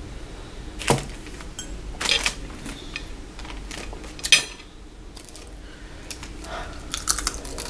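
Eating and tableware sounds: sharp clicks and knocks as a ceramic mug is sipped from and set down on a table, then short crackly ticks near the end as crisp bacon strips are picked up and bitten.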